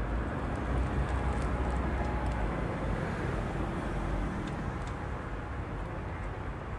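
Outdoor street ambience: a steady low rumble with a haze of noise, stronger in the first four seconds or so and then easing, with a few faint light ticks.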